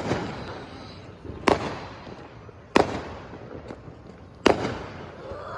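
Fireworks going off: four sharp bangs about a second and a half apart, each trailing off in an echo.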